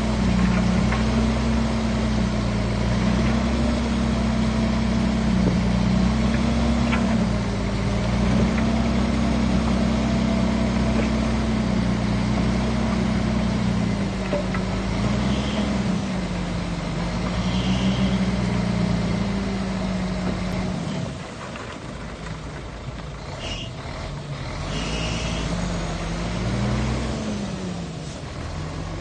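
Bulldozer's diesel engine running and working under changing load, its pitch wavering up and down, with a few short high squeals. About two-thirds of the way through the engine note drops away and quietens, then comes back with a rise and fall near the end.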